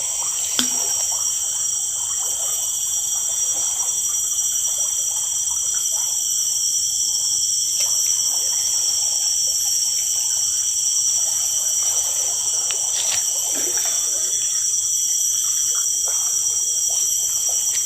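Flowing river water running steadily, with a constant high-pitched drone over it and a small click about half a second in.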